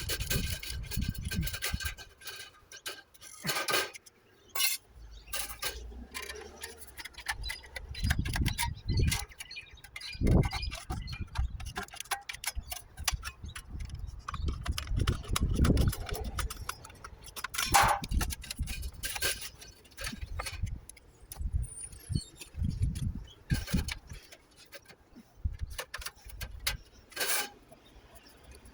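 A Colorbond steel flashing tray being cut and handled: irregular sharp metallic clicks, snips and clinks, with low thumps in between.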